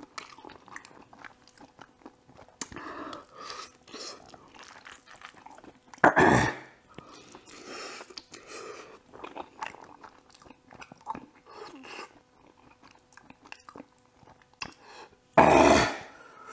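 Close-miked slurping and chewing of spicy ramen noodles, picked up by a clip-on microphone on the eater's shirt. Many short wet mouth sounds, with two much louder ones about six seconds in and near the end.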